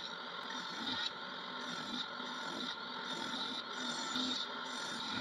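Background music over a table saw running as pine boards are ripped into narrow strips.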